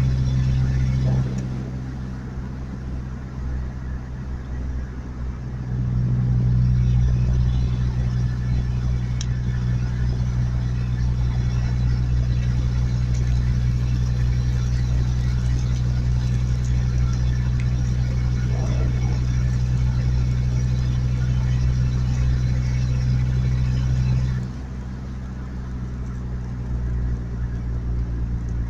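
Motor vehicle engine running with a steady hum. It eases off a second or so in, swells louder about five seconds in, and settles back down near the end.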